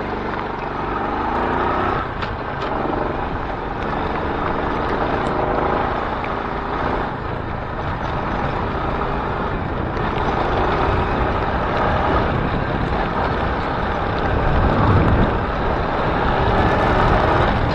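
Small motorcycle running steadily on the move, its engine mixed with heavy wind and road noise on the camera mic, while riding in rain.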